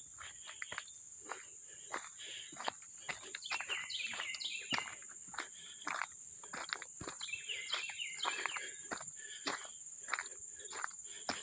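Insects droning in one steady high pitch, with footsteps crunching irregularly through dry leaves and weeds on a woodland trail. A bird sings a short chirping phrase twice, about four and eight seconds in.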